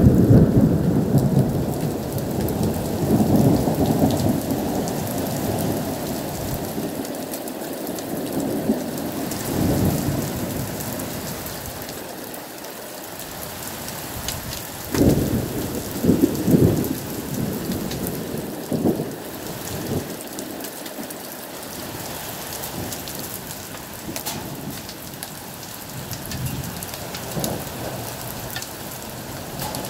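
Heavy rain pouring steadily, with thunder rumbling over it. The loudest rumble comes at the start and fades over several seconds, and shorter rumbles follow about ten seconds in and again around fifteen to twenty seconds in.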